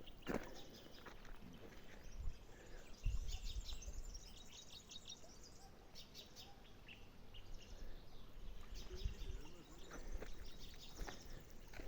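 Small birds chirping in quick runs of short, high notes, with a few low rumbles now and then.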